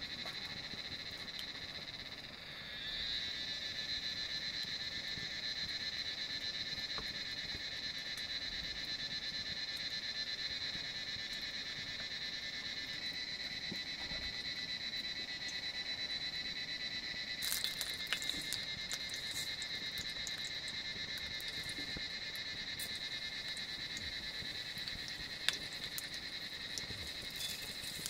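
A steady, high trilling chorus of frogs and insects. Scattered sharp crackles join in from about two-thirds of the way through.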